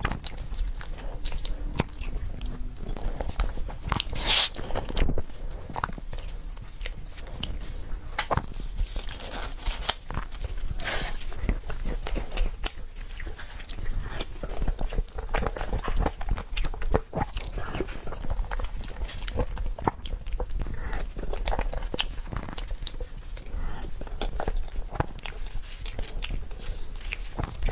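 Close-miked eating sounds: a spoon scooping cream cupcake and the wet chewing and smacking of the soft cream, broken by many small clicks and crunches.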